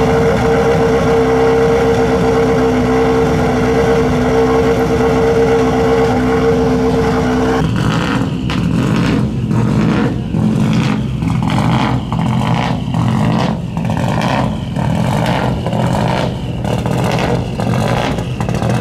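Rally-car engine noise in a service tent. First a steady, even engine drone. Then, about 8 seconds in, a Subaru Impreza rally car's engine running on stands, uneven and pulsing, with repeated throttle blips rising and falling in loudness.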